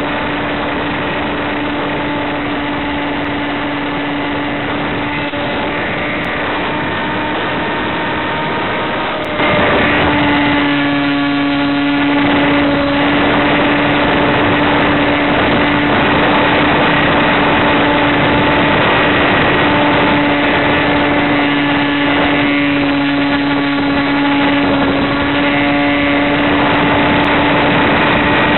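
Electric motor and propeller of an FPV model plane droning steadily in flight over a dense hiss, with a strong steady hum. It steps up in loudness about nine seconds in.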